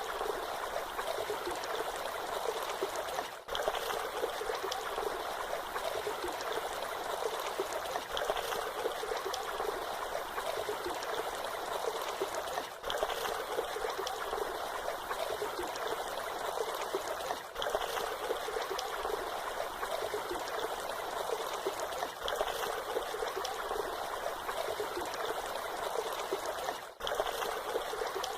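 Water of a small waterfall splashing and trickling in a steady, even rush, with a few momentary dips in level.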